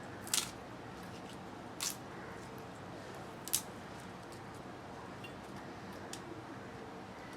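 Betel leaves being handled and put into a flask: three short crisp rustles about a second and a half apart, then a few faint ticks.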